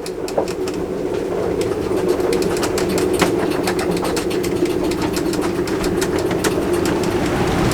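Storm-force wind blowing through an anchored sailboat's rigging, giving a steady low moaning tone, with many irregular sharp taps and rattles over it; it grows louder over the first couple of seconds, then holds.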